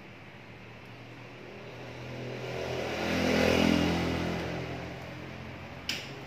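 A motor vehicle passing by: its engine sound swells to a peak about three and a half seconds in, then fades away. A single sharp click near the end.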